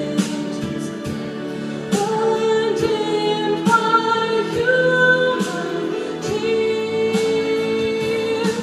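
A show choir singing in harmony over instrumental accompaniment, holding long notes, with sharp beats marking the rhythm.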